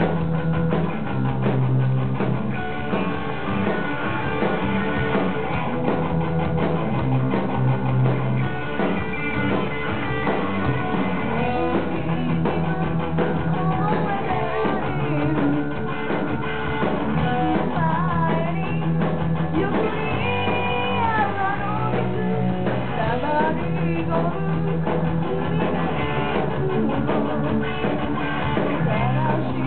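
Punk band playing live: drum kit, electric bass and a woman singing into the microphone, heard as a loud, dense rock mix in the room.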